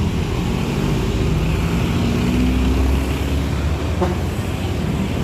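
Diesel engine of a coach bus running as it pulls past, a steady low rumble whose engine note rises a little about two seconds in, with traffic noise around it.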